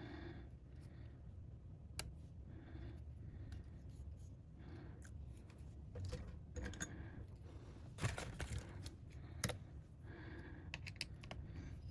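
Faint clicks and light scraping from small tools and parts being handled at a repair bench, over a low steady hum. A sharp click about two seconds in, and a cluster of louder clicks around eight to nine and a half seconds in.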